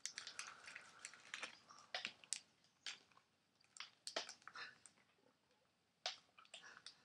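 Quiet crinkling of a choc ice wrapper being pulled off, then scattered crunches and clicks as the chocolate-coated ice cream is bitten and chewed. The crackling is busiest in the first couple of seconds and thins to a few sharp clicks later.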